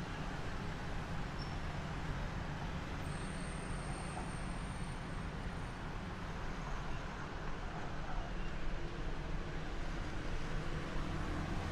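Steady low rumble of street traffic, an even background hum with no distinct events.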